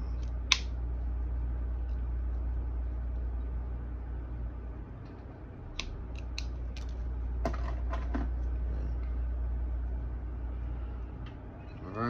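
Hand RJ45 crimping tool clicking as its blade cuts and strips the jacket of a Cat 5 cable: one sharp click about half a second in, then a cluster of lighter clicks and handling knocks around six to eight seconds, over a steady low hum.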